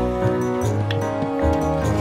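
Background music with a bass line and shifting pitched notes.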